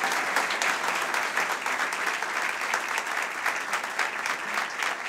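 Audience applauding: many hands clapping steadily, easing off slightly toward the end.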